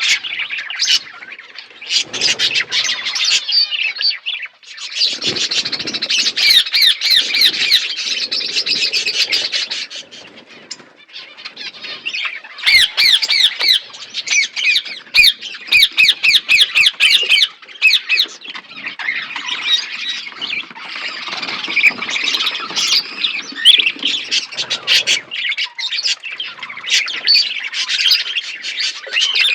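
A flock of budgerigars chattering together: a dense mix of chirps, squawks and fast warbling trills, dipping briefly about four seconds in and again around ten seconds in.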